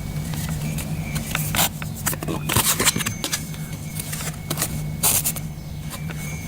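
Handwriting on paper: irregular scratchy pen strokes and light taps in short runs with brief pauses, the busiest bursts about two seconds in and again around five seconds, over a steady low hum.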